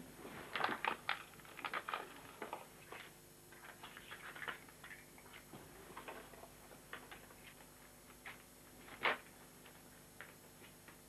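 Metal chains on a person's wrists clinking and a heavy canvas sack rustling as it is handled and pulled up around him. It comes as scattered clicks and knocks, bunched in the first two seconds, with the sharpest single click about nine seconds in.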